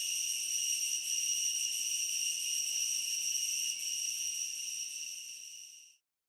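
Insect calling with a steady, unbroken high-pitched tone. It fades over about a second near the end and then cuts off.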